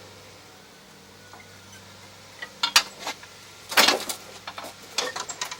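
Small metal parts clinking and clattering as they are handled: a few sharp clinks about two and a half seconds in, a louder clatter near four seconds, and a few more clinks near the end.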